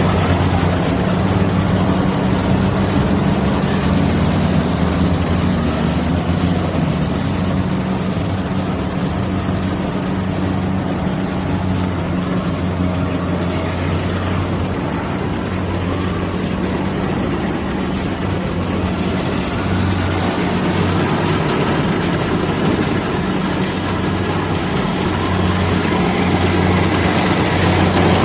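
Kubota rice combine harvester's diesel engine running steadily as it cuts lodged rice in soft, boggy ground, a continuous low drone with a mechanical rattle over it.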